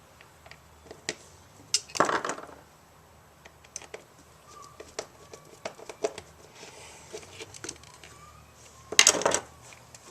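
Small clicks and clatter of hand tools and plug parts being handled while a replacement plug is fitted to an extension cord, with two louder, brief scraping rattles, one about two seconds in and one near the end.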